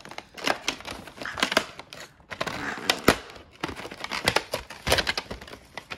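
Cardboard and plastic packaging of a trading-card collection box being pulled and torn open by hand: irregular crinkling, crackling and tearing, with a sharper snap about three seconds in.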